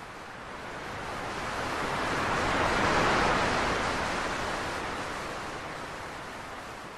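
Sea surf on a beach: one long surge of wave noise that swells to a peak about three seconds in and then fades away.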